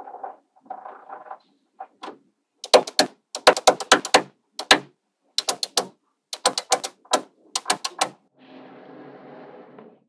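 Small magnetic balls clicking as strips of them snap onto a wall built of magnet balls: clusters of sharp clicks from about three to eight seconds in, after a soft rattle of balls being handled. Near the end, a steady softer scrape.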